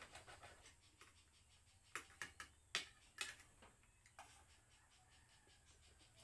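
Cutlery clicking and scraping on plates as people eat: a handful of light clinks, most of them between about two and four and a half seconds in, over a faint low hum.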